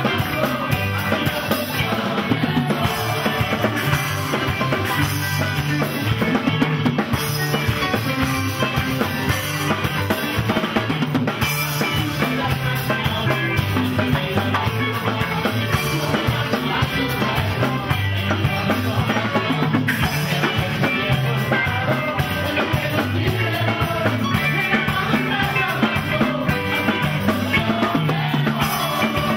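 Rock-style band music with a drum kit and a bass line stepping between notes, playing steadily without a break.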